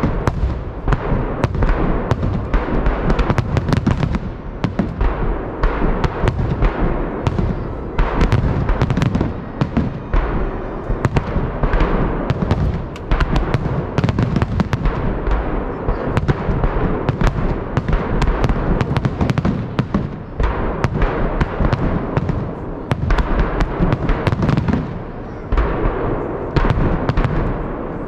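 Festive fireworks salute: shells bursting in a dense, continuous barrage of loud bangs, several a second, with crackling between them.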